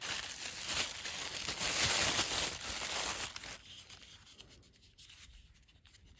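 Thin plastic bag crinkling and rustling as hands unwrap it, for about three and a half seconds. Then quieter handling, with soft rubbing and a few small ticks, as a rolled paper log is taken out.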